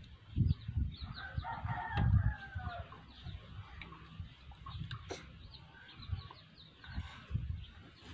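A rooster crows once, starting about a second in and lasting about a second and a half. Small high chirps run alongside, with low thumps.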